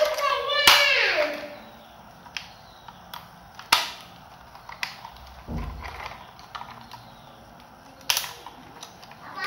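A plastic toy helicopter being handled: scattered light clicks and knocks of its plastic body and rotor blades, one sharper click a little under four seconds in. A short wavering pitched sound fades out in the first second or so.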